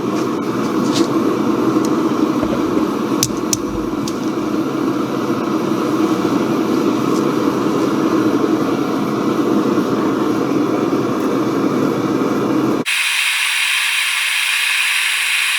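Gas torch flame burning steadily against a steel pipe to heat it for bending. About thirteen seconds in, the roar switches abruptly to a thinner, higher hiss.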